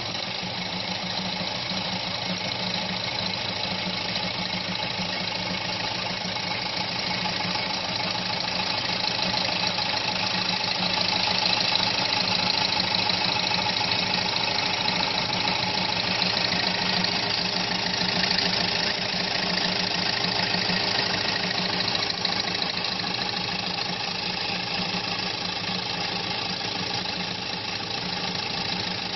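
Industrial G-TEK multi-needle chainstitch pleating machine running steadily, its needles rapidly chattering as it stitches and pleats a strip of net fabric.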